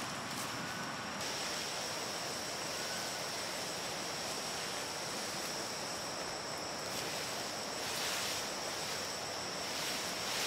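Outdoor ambience: an insect's steady high-pitched call starts about a second in and holds unbroken over a soft, even hiss.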